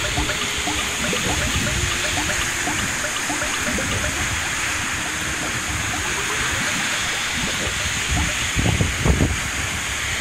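Steady roar of the Steinsdalsfossen waterfall and its rocky river, with a few low gusts of wind on the microphone near the end.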